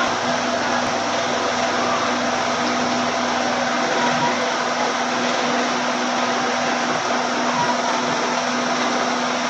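Vacuum cleaner running steadily: an even rush of air over a constant motor hum, starting abruptly.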